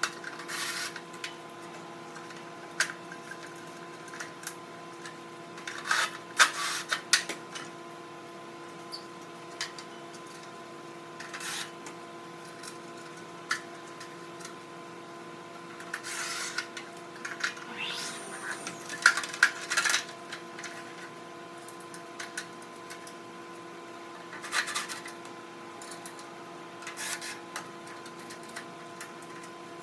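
Irregular rubbing and scraping of parts being handled and worked on, in short bursts, over a steady hum made of several fixed tones.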